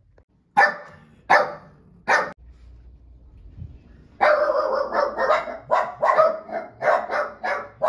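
Small dog barking: three sharp barks, then after a short pause a rapid, excited run of barking about four seconds in, the alert of dogs hearing their owner's car pull up at the house.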